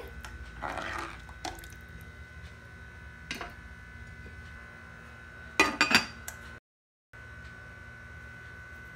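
Ladle stirring thin potato-tomato curry in a pot, with a few light taps. About six seconds in, a glass lid clinks down onto the pot. A faint steady hum runs underneath.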